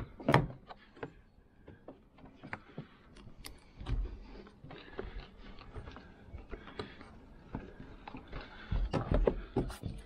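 Scattered clicks, taps and knocks from a screwdriver and hands working the window frame, trim and rubber channel of a Mercedes Sprinter's front door. The sharpest click comes just after the start, a dull knock about four seconds in, and a quick cluster of knocks near the end.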